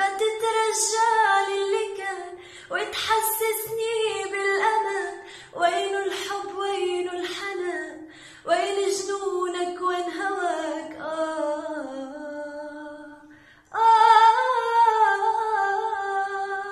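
A woman singing a cappella, with no accompaniment, in long held phrases with vibrato. A brief pause comes about 13 seconds in, and then a louder sustained phrase fades away near the end.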